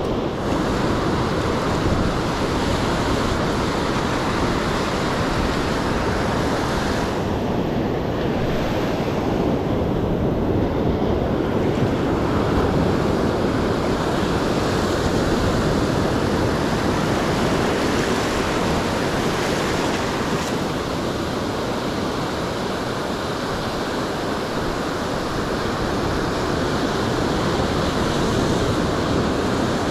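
Ocean surf breaking and washing up a sandy beach, a steady rushing wash, with wind on the microphone.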